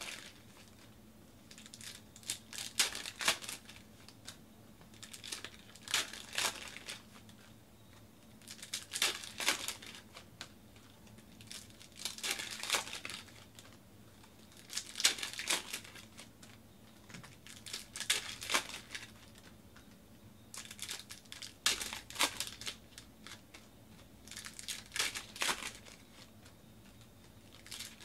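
Foil trading-card pack wrappers crinkling and tearing as packs are opened by hand, in bursts of rustling about every three seconds.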